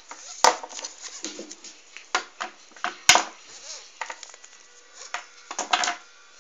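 Small hard-plastic toys being handled and moved about on a plastic toy playset: a string of clicks and knocks with light rustling between, the sharpest about half a second and three seconds in.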